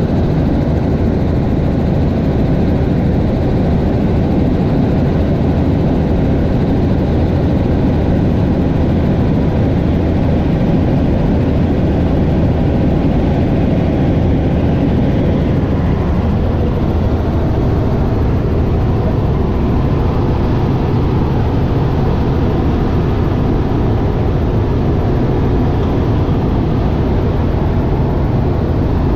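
Helicopter in flight, heard from inside the cabin: steady, loud engine and rotor noise.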